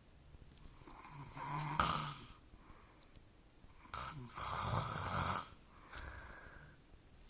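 A man snoring in his sleep: two long snores, about a second and more each, with a quiet pause of a couple of seconds between them.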